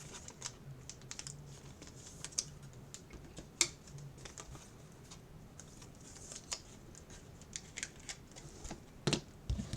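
Scattered faint clicks and light rustles of hands handling things at a desk, with two sharper clicks, one a few seconds in and one near the end.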